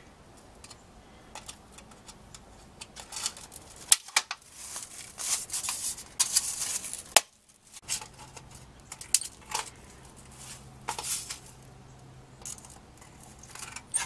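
Scissors snipping thin metal roof flashing: a run of sharp clicks with the crinkle and rattle of the thin sheet being handled, busiest for a few seconds in the middle.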